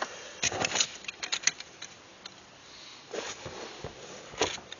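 Scattered light clicks and taps of plastic keyboard parts being handled and fitted together, a quick cluster in the first two seconds and a few more near the end.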